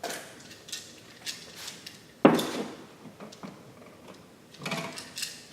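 Hand tools and wiring being handled at a wall switch box: a few sharp clicks and knocks, the loudest about two seconds in with a brief ring, and a cluster of rattles near the end.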